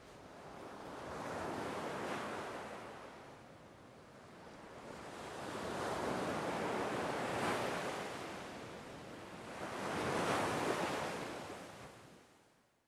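Ocean surf washing onto a beach: three slow swells of wave noise, each rising and falling away, the last fading out near the end.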